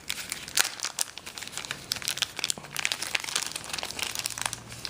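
Packaging crinkling and crackling as it is unwrapped by hand, a dense irregular run of small crackles and clicks.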